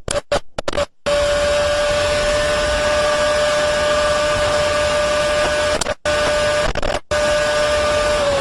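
Ferrari Formula One car's engine held at high revs in seventh gear at full throttle, heard onboard as one steady high tone with overtones over wind and tyre noise. The sound cuts out briefly several times in the first second and twice more near the end.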